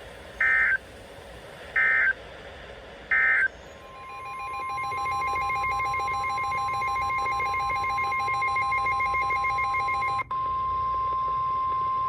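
NOAA Weather Radio EAS signalling. First come three short end-of-message data bursts about a second and a half apart, closing the watch message. Then the steady 1050 Hz warning alarm tone fades in and holds for about eight seconds, with a brief dropout near the end, announcing that a warning follows.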